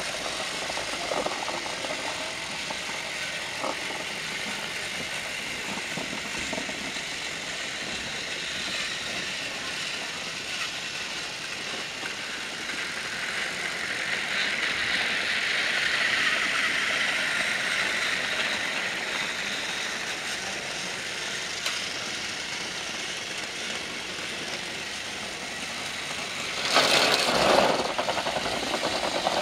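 Motorized Trackmaster toy trains whirring and rattling along plastic track. The sound swells for a few seconds about halfway through, and near the end there is a brief, louder rattle as one runs close by.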